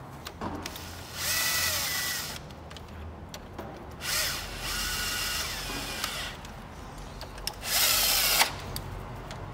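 Cordless drill tightening the three bolts that hold a camshaft timing locking tool onto the engine's cylinder head, running in three short bursts of one to two seconds each with a high whine, small clicks of handling in between.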